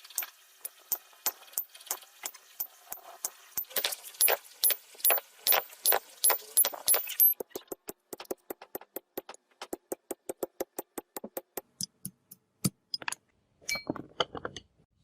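Metal being struck, like a hammer tapping iron: a steady run of sharp metallic clinks, about two or three a second, each with a brief high ring. About seven seconds in, the ringing stops and the strikes turn into drier, quicker taps.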